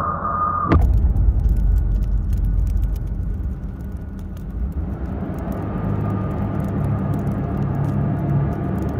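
A low steady rumble like a motor vehicle running, with a sharp click about a second in and faint crackling clicks over it.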